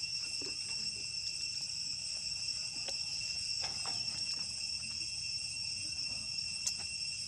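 Steady, high-pitched chorus of insects droning without a break, with a few faint clicks and one sharper click near the end.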